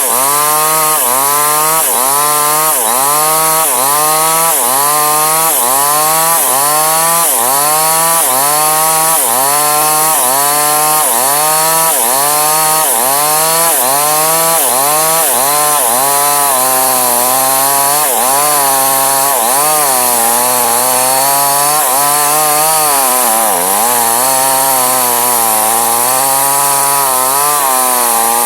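Two-stroke chainsaw running at high revs while cutting Medang timber, its engine pitch dipping under load and recovering about one and a half times a second. Past the middle the swings grow slower and deeper, with one deep dip about three quarters through.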